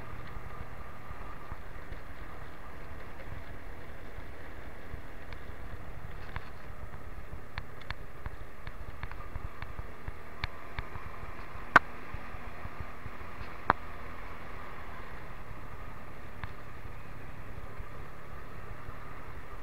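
Motorcycle riding at a steady pace: a constant wash of engine and wind/road noise. A few sharp knocks cut through it, the loudest about twelve seconds in and another about two seconds later.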